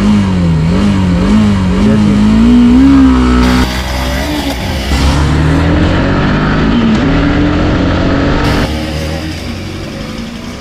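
Hero Xtreme 160R's single-cylinder engine held at high revs on the drag-race start line, the revs wavering up and down as the throttle is worked, then launching and accelerating hard with a rising engine note and an upshift about seven seconds in. Near the end the engine sounds quieter and further off.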